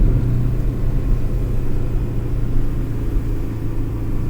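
Porsche 718's engine running at a steady pitch while the car drives, a deep even rumble with no pops or crackles.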